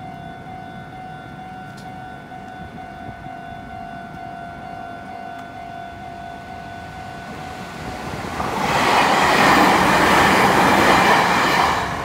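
Japanese level-crossing warning bell ringing steadily. About eight seconds in, a train passes close by, loud for about four seconds and nearly drowning the bell, then falls away sharply near the end.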